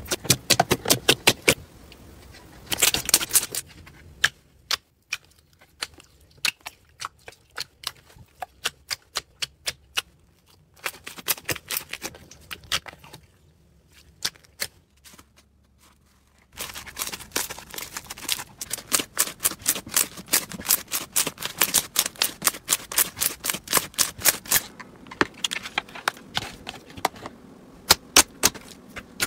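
Hands squeezing, pressing and poking slime, making quick runs of sharp clicking pops as trapped air bursts. The clicks thin out for a while and nearly stop a little past the middle, then come thick and fast again.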